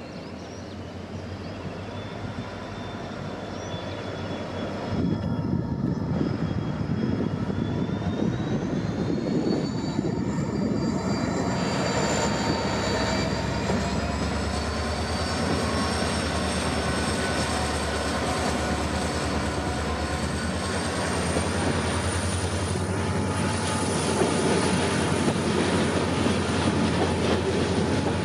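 WDP4D diesel-electric locomotive, with a 16-cylinder two-stroke EMD 710 engine, approaching and passing close by under power. Its engine drone builds over the first five seconds and then holds steady and loud, with a high whine that slowly rises in pitch.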